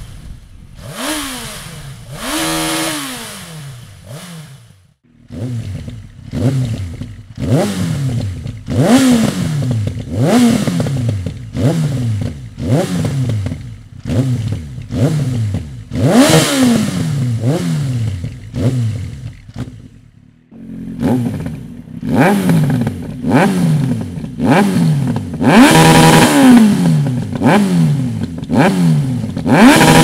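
Yamaha XJR 1300 air-cooled inline-four standing still and revved in quick throttle blips, each a sharp rise and fall in pitch. At first it runs through the stock exhaust with two softer blips. After a short break, it blips about once a second through an aftermarket Dominator round silencer, then, after another break, through a Dominator GP1 silencer, both louder.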